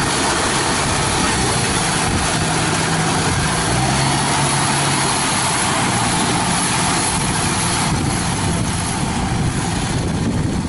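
The engine of a tracked rice-paddy tractor running steadily as the machine crawls through deep mud.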